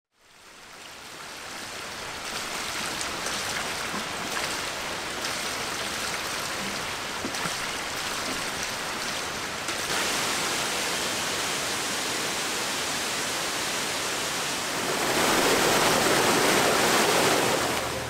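Steady rush of flowing stream water, fading in over the first couple of seconds and growing louder about fifteen seconds in.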